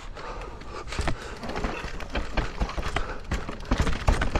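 Mountain bike rolling over rough trail: irregular knocks and rattles from the tyres and frame hitting roots and steps, over a low rumble that gets louder toward the end.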